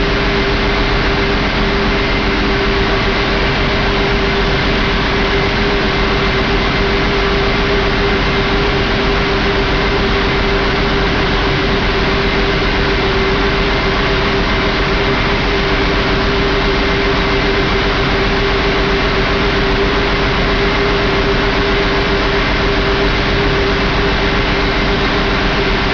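Mack E7 inline-six turbo diesel engine running steadily on a test stand, at an even speed with a steady tone over the engine noise.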